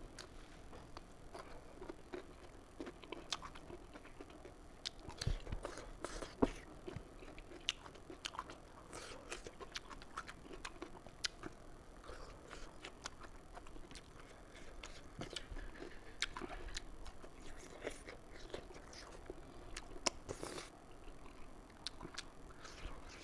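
Close-miked eating: a person chewing and biting food, with irregular wet clicks and smacks of the mouth throughout.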